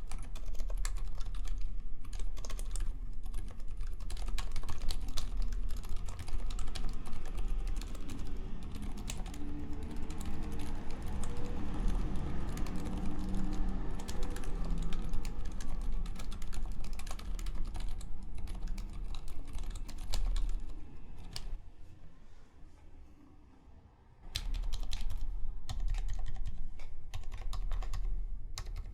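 Steady typing on a Rukia custom mechanical keyboard with lubed MX Zilent silent switches (Cherry MX Silent Black stems in Zealio housings), a polycarbonate plate and GMK Modern Dolch keycaps. The keystrokes are dampened. The typing tapers off about three-quarters of the way through and picks up again a few seconds later.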